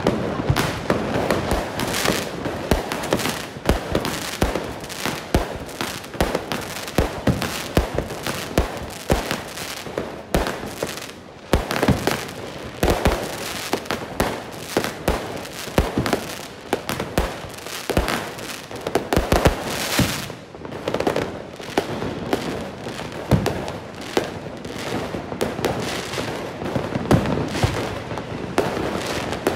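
Many fireworks going off together: a dense, continuous barrage of bangs and crackling, several a second, with no pause.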